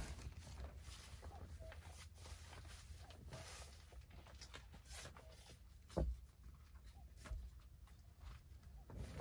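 Rustling and small clicks of things being handled, with a sharper thump about six seconds in and another near the end.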